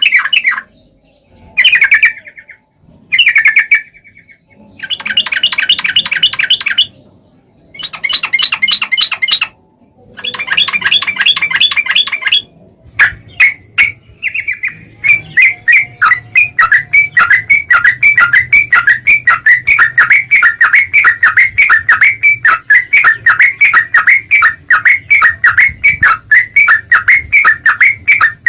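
Yellow-vented bulbul (trucukan) chattering song, fast runs of repeated notes. It comes in bursts of a second or two with short pauses, then from about halfway through turns into one continuous rapid chatter of several notes a second.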